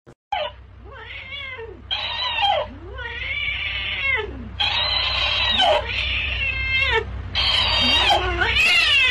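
A cat meowing over and over: long, drawn-out yowls that rise and fall in pitch, one after another with hardly a break, over a steady low hum.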